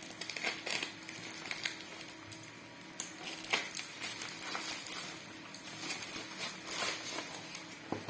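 Packaging being handled and opened by hand: irregular crinkling, rustling and small clicks and taps of plastic and cardboard.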